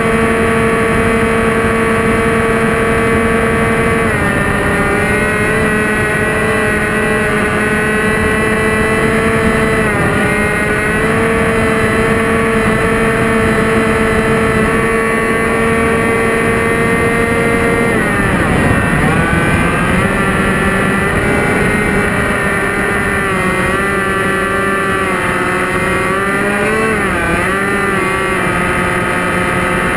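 Motors and propellers of a twin-motor radio-controlled model airplane in flight, heard from a camera on its underside: a steady whine over rushing wind. The pitch steps down at about 4 and 10 seconds, swoops down and back up a little past the middle, and wavers near the end as the throttle and manoeuvres change.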